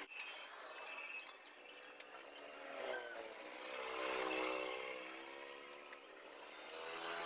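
Hands fitting a cast-iron back cover and its bolts onto a small diesel engine: quiet handling and rubbing of metal parts, with one sharp metal clink about three seconds in.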